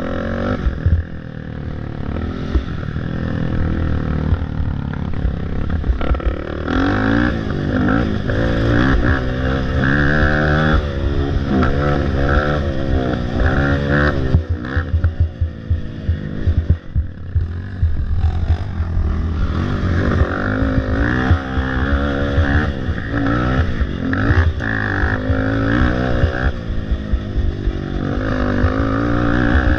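A racing ATV's engine revving up and down over and over as the rider gets on and off the throttle, recorded close on the machine. Short knocks and rattles from the quad bouncing over the rough dirt trail run underneath.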